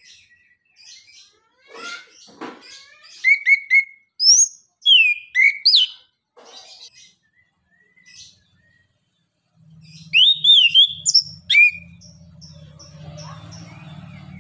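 Chestnut-capped thrush singing a varied, chattering song of short chirps, quick runs of repeated notes and loud slurred whistles, with a pause about two-thirds through. A low engine hum comes in about ten seconds in.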